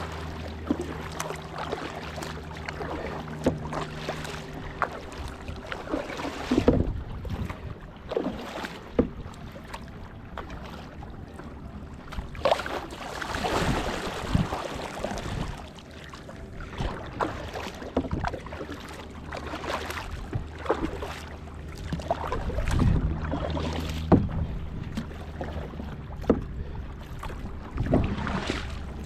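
Kayak paddling: uneven splashing and swishing of paddle strokes through the water, with a few sharp knocks, the loudest about a third of the way in and near the end. A low steady hum is heard in the first few seconds and again about three-quarters of the way through.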